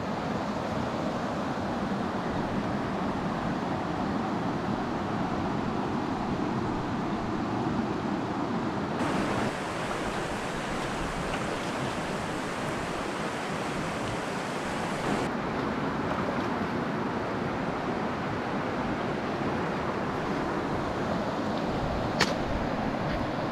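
River water rushing over a shallow, stony riffle: a steady, even rush. A single sharp click is heard near the end.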